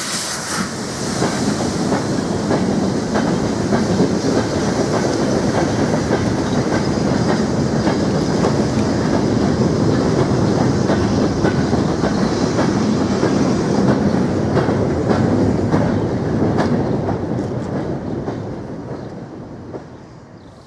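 Train of goods wagons rolling past over jointed track and pointwork, with a steady rumble and repeated wheel clicks. The sound fades away near the end as the train draws off.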